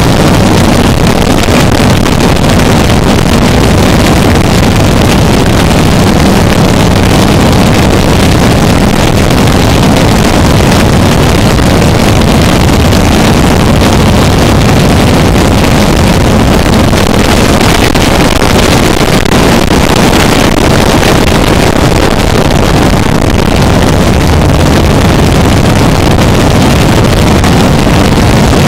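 Harsh noise music: a loud, dense wall of distorted noise filling the whole range, heaviest in the low end, steady with no breaks or beats.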